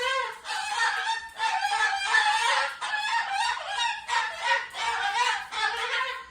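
Cockatoo calling loudly and without a break, in short warbling phrases whose pitch wavers up and down.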